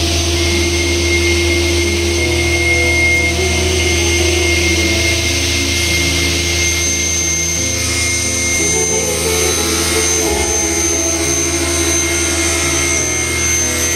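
SICAR SEGA 350 sliding table panel saw running and cutting a laminated board as the sliding table carries it past the blade: a steady machine whine and hiss, brighter in the second half. Background music with changing notes plays underneath.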